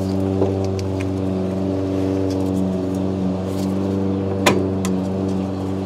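A steady machine hum with several evenly spaced tones, with a few sharp metallic clicks over it as a bolt and washer are worked into a rear lower coilover mount; the loudest click comes about four and a half seconds in.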